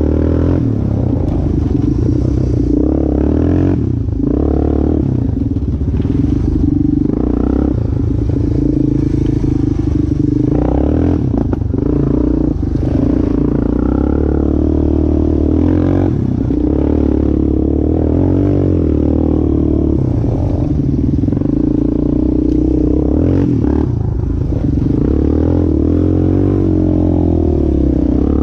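Yamaha Warrior 350 quad's single-cylinder four-stroke engine running while riding a dirt trail, its pitch rising and falling with the throttle, with several sharp knocks and clatter from the machine over rough ground. The engine is freshly rebuilt and on its break-in ride.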